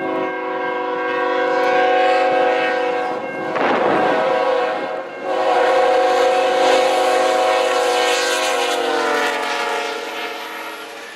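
Train's multi-note air horn sounding one long loud chord, broken by a rushing noise about four seconds in; the chord slides slightly lower in pitch near the end and fades.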